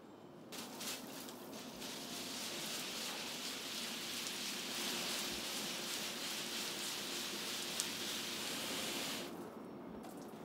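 Garden hose with a trigger spray nozzle spraying water onto potted plants: a steady hiss that starts about half a second in, sputters briefly at first, and cuts off near the end.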